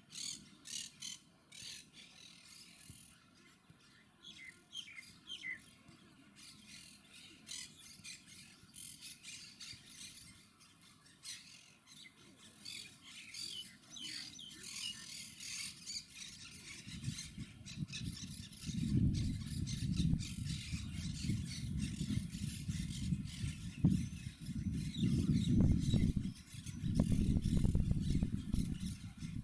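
Monk parakeets chirping and squawking in quick, short calls. From a little past halfway a loud low rumbling noise comes in and grows louder, drowning out the calls.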